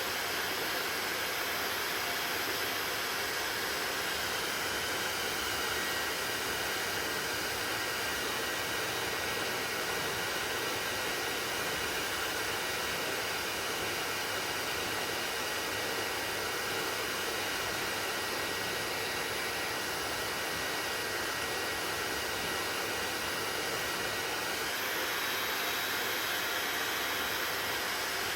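Hair dryer running steadily: a constant rush of blown air with a faint high whine, its tone changing slightly near the end.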